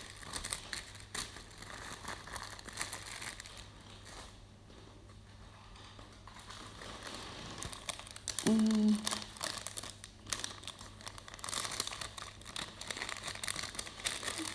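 Crinkly packaging rustling and crinkling as it is handled, in irregular bursts, quieter for a few seconds near the middle and busier again near the end.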